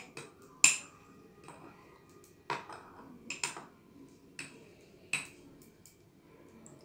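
Metal spoon clinking against a ceramic mug as milk foam is spooned onto a cappuccino: about nine irregular clinks with a short ring, the loudest under a second in.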